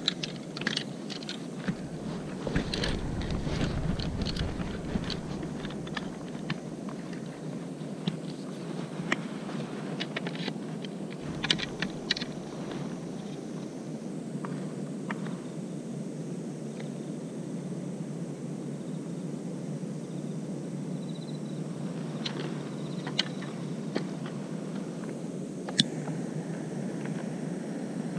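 Scattered clicks, knocks and rattles of fishing tackle being handled and set up, including a metal multi-rod holder being tightened with a wrench. They come thickest in the first few seconds and again around the middle, over a steady background rush.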